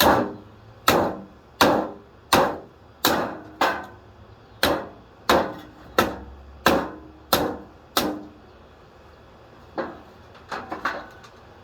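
An electric box fan being smashed: about twelve hard blows, roughly one every two-thirds of a second, then a few lighter knocks near the end.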